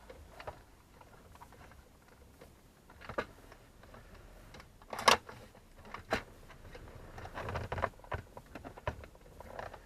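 Scattered clicks and plastic rattling as wiring connectors are unplugged from the dash clock and cigarette lighter. One sharp, loud click comes about five seconds in and another about a second later.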